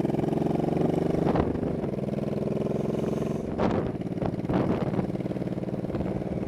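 1985 Honda Shadow VT700C's V-twin engine running steadily under way, its pitch easing slightly about a second and a half in, with a few short rushes of noise in the second half.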